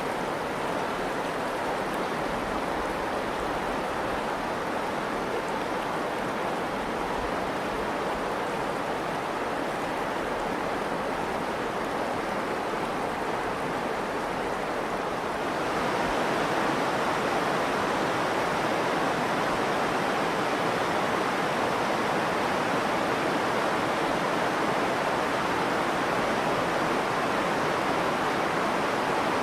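The Virgin River rushing steadily through a narrow sandstone canyon. About halfway through it turns louder and brighter.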